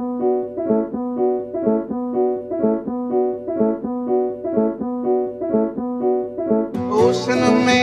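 Background music: a repeating keyboard figure of pitched notes in an even rhythm, with a fuller, brighter arrangement coming in near the end.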